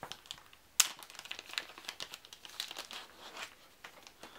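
Plastic wrapping crinkling as a stack of game cards is handled and unwrapped, with a sharp click about a second in.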